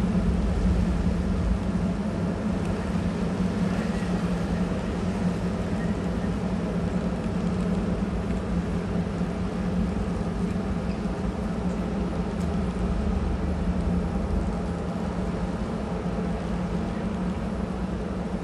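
Codecasa 51 motor yacht's diesel engines running steadily at low revs while it manoeuvres, a constant low hum over a rumble, with the churn of propeller wash at the stern.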